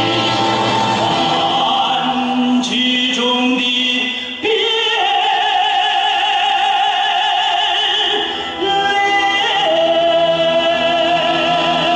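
Music carried by a melody of long, wavering held notes that step from pitch to pitch, with short dips in loudness about four and a half and eight and a half seconds in.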